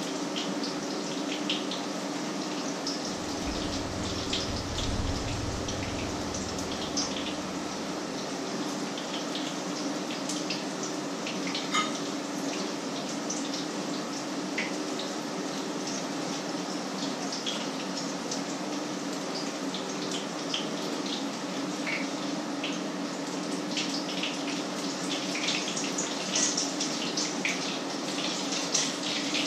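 Patties frying in hot oil in a pan, a steady sizzle with scattered crackles and pops that get busier near the end, over a steady low hum.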